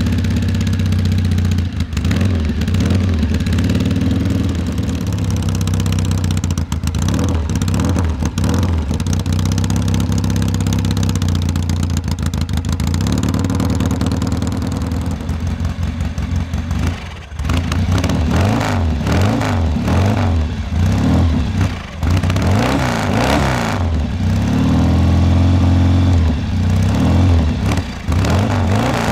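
Classic scrambler motorcycle engine running, at first at a fairly steady speed, then blipped on the throttle with quick rises and falls in revs in the second half.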